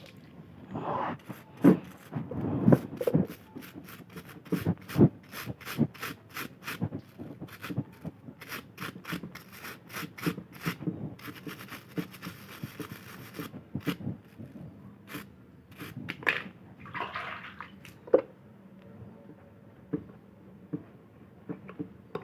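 A brush scrubbing the water inlet valve and its filter screen from a washing machine, in short irregular strokes with clicks and knocks of plastic parts being handled. There is a denser stretch of continuous brushing about halfway through. The inlet is being cleaned as a fix for a valve that lets water keep running in.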